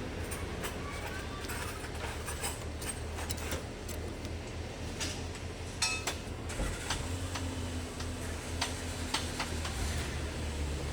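Scattered light clicks and taps of tools on metal over a steady low hum.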